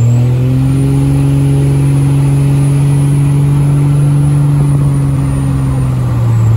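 Single-turbo diesel pickup under acceleration, heard from inside the cab: a steady engine drone with a high turbo whistle that climbs as the turbo spools up in the first second, holds, and drops away near the end.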